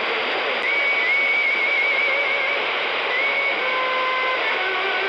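CB radio receiver hissing with static on an open channel while nobody transmits. A faint wavering whistle comes and goes about a second in, and a few steady whistle tones sound briefly past the middle.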